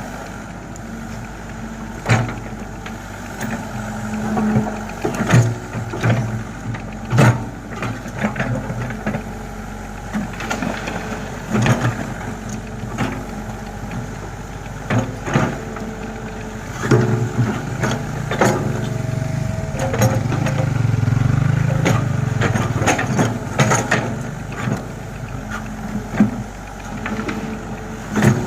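Yellow Komatsu hydraulic excavator at work digging sand: the diesel engine runs under a low hum, with many sharp clanks and knocks scattered through. The engine grows louder for a few seconds about two-thirds of the way in, as it takes load.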